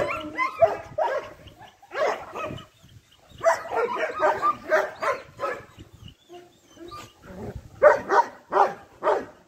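Dogs barking in quick runs of short barks, with a lull just past the middle.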